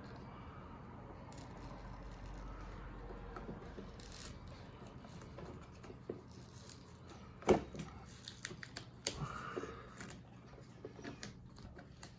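Hands working on a robot vacuum's battery and its taped connector wire: scattered small plastic clicks and rustling, with one sharper knock a little past halfway.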